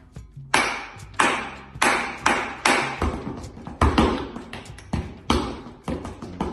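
Malambo zapateo: boot heels and soles stamping and tapping on a tile floor in sharp rhythmic strikes, loud single stamps about every half second at first, then quicker clusters of lighter taps.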